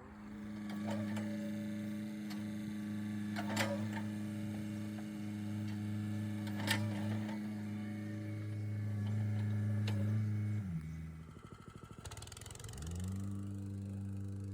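Engine of earthmoving machinery running steadily at a constant pitch, with two sharp metallic knocks about three and a half seconds in and again three seconds later. About eleven seconds in the engine note sags, then picks back up to speed about two seconds later.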